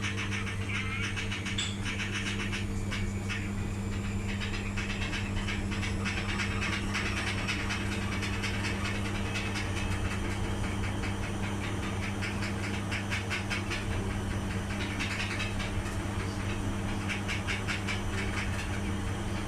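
Beko 7 kg washing machine running: a steady motor hum with a rough, rustling hiss over it.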